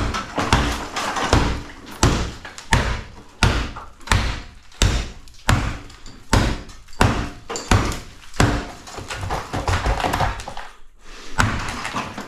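Claw hammer striking a marble-look wall panel over and over, about one and a half blows a second, breaking it up to strip it off the wall. The blows stop briefly near the end, then start again.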